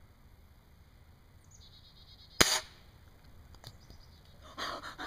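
A single pellet gun shot, a sharp crack about two and a half seconds in, the shot that brings down a small bird. Fainter noises follow near the end.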